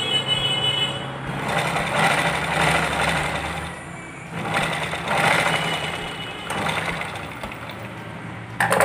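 Domestic sewing machine stitching fabric in a few runs that swell and ease off, over a steady low hum. A brief sharp sound comes near the end.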